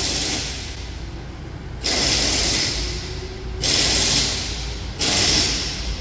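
Repeated bursts of hissing, each about a second long, the first at the start and the next three starting about two, three and a half and five seconds in.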